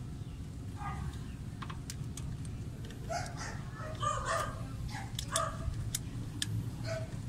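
Light metal clicks and clinks of a drum-brake shoe being fitted onto the backing plate around the wheel hub, over a steady low background hum. An animal call sounds in the background from about three to five seconds in.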